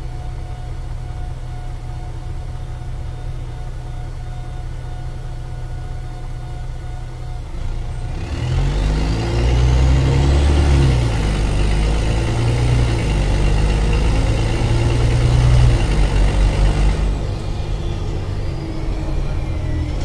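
Mercedes-Benz O-500MA articulated bus's diesel engine with a holed exhaust, idling, then revved about eight seconds in. It is held up for several seconds with a high whine climbing and holding above it, then drops back toward idle near the end.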